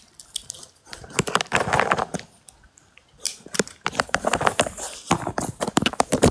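Bag of peanuts being handled, rustling and crinkling with many small, sharp, irregular clicks.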